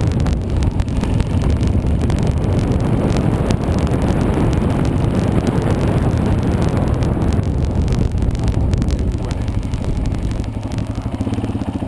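Enduro dirt bike engine running as the bike rides along a gravel trail. About ten seconds in, the engine drops back to a lower, steadier note.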